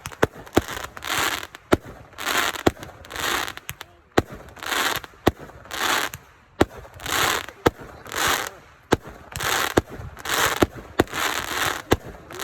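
Fireworks going off in a steady series, about ten shots in a row. Each is a sharp pop followed by roughly half a second of crackle, coming a little more than once a second.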